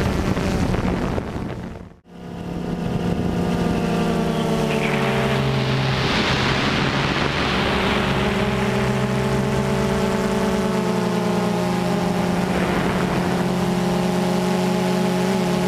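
DJI Phantom 2 quadcopter's motors and propellers humming steadily as heard from the camera it carries, several pitches together that shift lower about four seconds in. The sound dips briefly to near silence about two seconds in, and a rushing noise swells and fades between about five and eight seconds.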